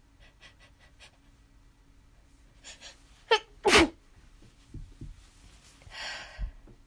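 A person sneezing: two sharp bursts about half a second apart, the second the loudest, with the voice falling in pitch. A breathy exhale follows near the end.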